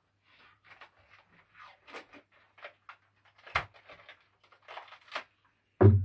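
Hand packing: irregular rustling and crinkling of wrapping material and packing tape as small items are wrapped, with a few sharp crackles. Near the end comes a loud heavy thump as something goes into the cardboard box.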